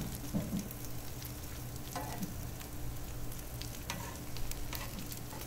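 Bacon, sausage patties and tater tots sizzling steadily on the steel top of a Blackstone 22-inch gas griddle. A few short clicks and scrapes come from metal tongs against the griddle as the tater tots are pushed aside.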